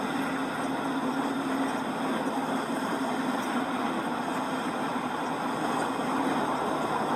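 Model diesel locomotive pulling a freight train past at slow speed: a steady hum over an even rush of wheels on the rails. The low hum weakens after about five seconds as the locomotive moves away.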